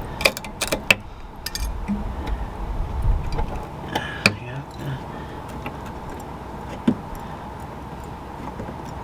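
Scattered light clicks and knocks from handling hard objects: a few sharp ones in the first second, another a little after four seconds and one near seven seconds, over a faint steady hum and a brief low rumble.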